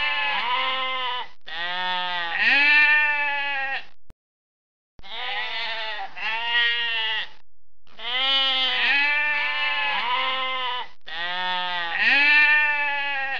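Sheep bleating, a run of long, wavering, nasal calls one after another, broken by a second of silence about four seconds in.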